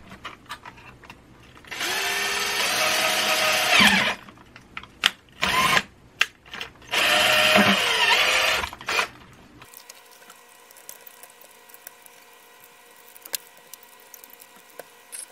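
Handheld power drill with a twist bit boring through the plastic case of a 1980s cassette Walkman, running in two bursts of about two seconds each; the motor pitch falls as it winds down at the end of each burst. Small clicks and handling knocks come between the bursts, and faint handling clicks follow.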